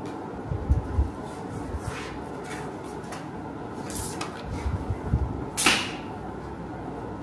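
Placemats being handled and laid down on a wooden table: soft knocks and brushing, with two quick swishes in the second half, the second the loudest.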